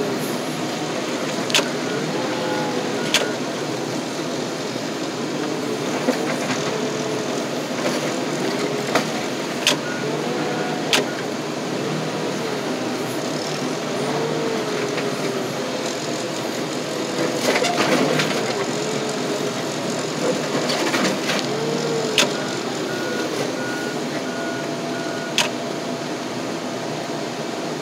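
Wheel loader's diesel engine running inside the cab, its pitch swelling and dipping every few seconds as the hydraulic arms are worked, with sharp metal clanks now and then as it shoves and tips a scrap car onto its side.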